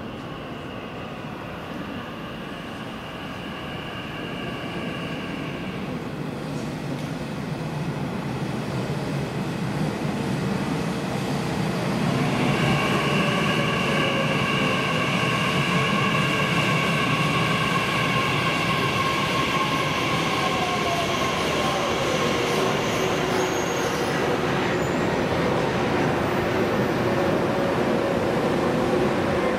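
Nishitetsu electric train approaching the platform and growing louder, with a steady high whine. About two-thirds of the way through, a lower motor whine falls in pitch as the train slows.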